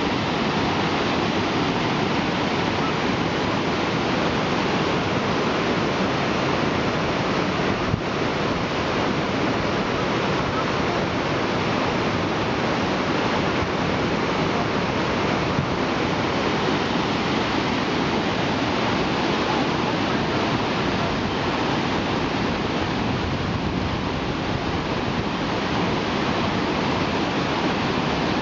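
Whitewater rapids of the Cache la Poudre River rushing over boulders, a steady loud rush of water.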